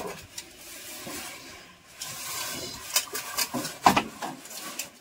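Rustling and scraping of objects being shifted and rubbed against each other, with two sharp knocks about three and four seconds in.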